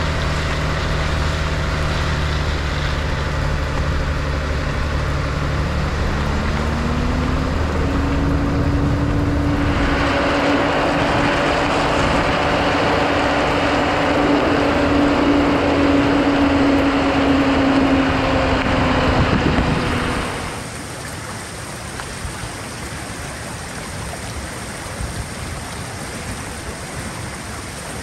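Pickup truck driving on a wet gravel road: engine running with tyre noise on the gravel, the engine note climbing about six seconds in. Around twenty seconds in it drops to a quieter steady hiss.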